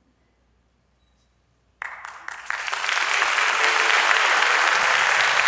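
Near silence, then about two seconds in a concert audience breaks into applause that swells within a second and holds steady and loud.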